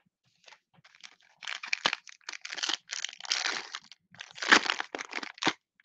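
Foil wrapper of a 2021 Panini Mosaic retail card pack crinkling and tearing as it is ripped open by hand, in a run of short rustling bursts, the loudest about four and a half seconds in.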